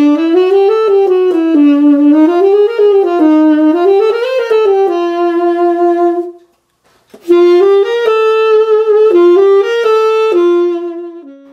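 Buescher Aristocrat tenor saxophone played in two melodic phrases, the first with sliding, wavering notes and a pause of about a second before the second. It has been freshly re-padded and has no leaks, and it plays smoothly.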